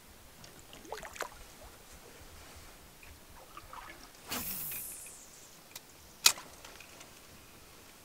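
Small handling sounds in a canoe: a few light knocks, a brief swish about four seconds in, and a single sharp knock just after six seconds.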